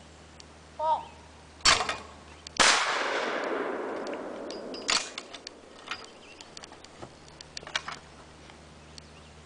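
A sharp snap, then a loud shotgun blast whose echo rolls away over about two seconds. A few metallic clicks and knocks follow as the gun is handled.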